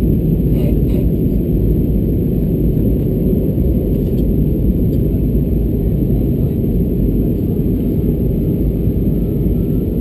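Steady low rumble of airliner cabin noise from inside an Airbus A320-214 on approach: its CFM56 turbofan engines and the airflow over the fuselage, with a couple of faint clicks about a second in.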